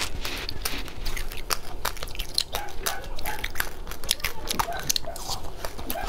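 Close-miked chewing with the mouth closed: a dense run of small, sharp crunches and wet clicks.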